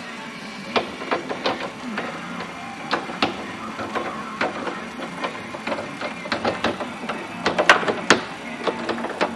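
Irregular clicks and light knocks of hand work on parts, with a quick cluster of sharper clicks a little before the end, over a steady low hum.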